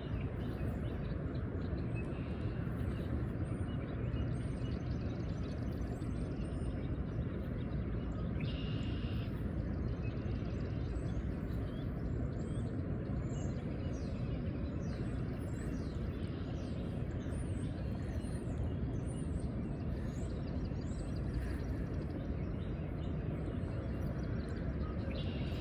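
Steady rushing outdoor noise with small birds chirping over it, again and again.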